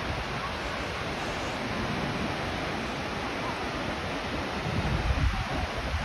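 Steady rushing of a waterfall, with a low buffeting rumble about five seconds in.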